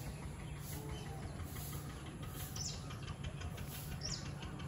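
Outdoor evening ambience: a steady low rumble with birds chirping, two short high falling calls standing out just past halfway and near the end.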